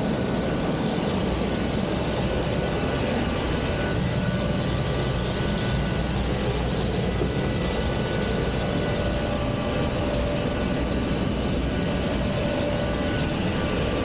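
Military helicopter's turbine engines and rotor running steadily, a dense even noise with faint steady whining tones, heard from its open cabin.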